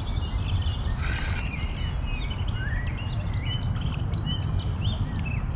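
Small birds chirping and singing over a steady low rumble, with a short splash of water about a second in from a hooked catfish thrashing at the landing net.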